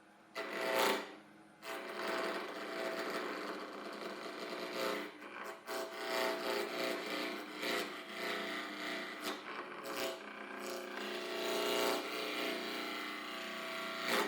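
Woodturning on a wood lathe: a tool cutting and scraping the spinning wood against a steady motor tone, with short breaks where the tool is lifted off.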